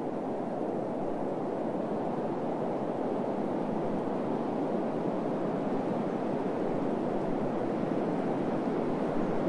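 Steady wind ambience: an even, low rush of wind that swells slightly, with no distinct events.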